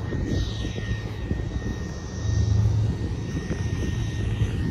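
Wind buffeting the phone's microphone on a boat's open deck, a rough gusting rumble over a steady engine drone with a faint high whine.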